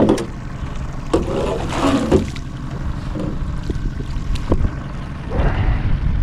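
Steady low rumble of a small fishing boat on the water, with a few sharp knocks about one, two and four and a half seconds in.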